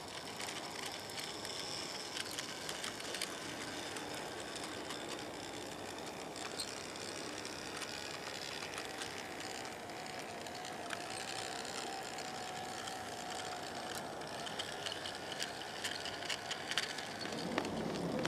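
Small electric garden-railway locomotive running along the track: a faint, low-level running sound with light clicks from the wheels on the rails, a faint wavering whine for several seconds in the middle, and getting louder near the end as it approaches.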